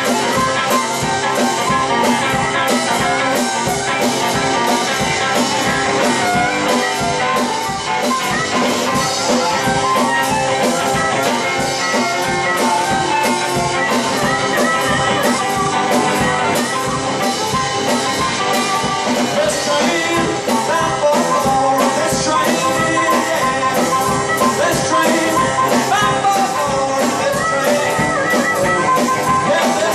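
Live blues band playing a shuffling train song: amplified harmonica over electric guitar and a drum kit keeping a steady beat.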